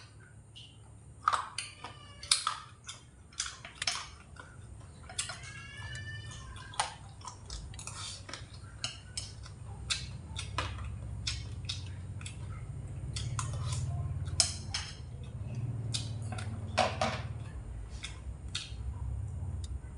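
Chopsticks clicking and tapping against a plate of fried pork ribs, with many small sharp clicks at irregular intervals, some ringing briefly. A low rumble grows underneath in the second half.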